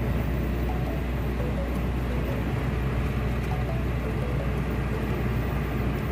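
Steady, even rumble of a motor vehicle, strongest at the very low end, with a hiss over it.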